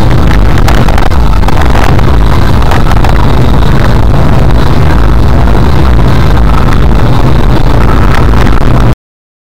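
Car driving, with its engine and road noise picked up inside the cabin by a dashcam's built-in microphone: a steady, very loud low rumble with hiss. It cuts off abruptly near the end.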